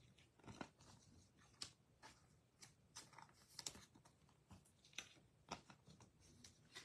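Near silence with faint, scattered clicks and rustles: trading cards and packs being handled.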